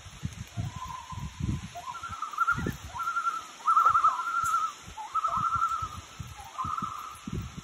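Common loon calls: a string of wavering, warbling cries held around one pitch, the loudest about four seconds in, over low rumbling thumps on a phone microphone.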